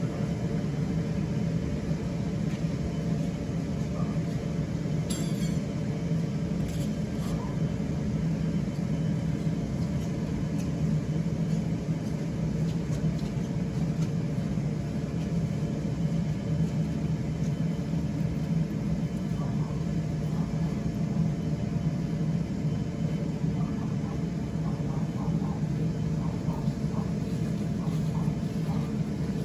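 Electric inflation blower running steadily, filling an inflatable waterslide bounce house with air.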